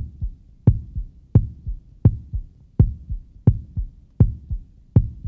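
Heartbeat sound effect: a steady double beat, a strong low thump followed by a softer one, repeating about every 0.7 seconds (roughly 85 beats a minute).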